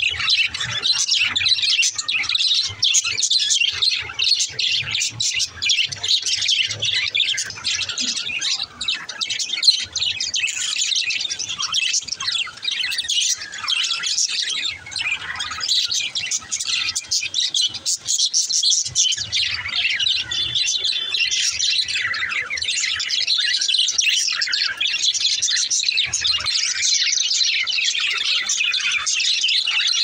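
A flock of budgerigars chattering and chirping all at once: a dense, high-pitched, unbroken warble with no pauses.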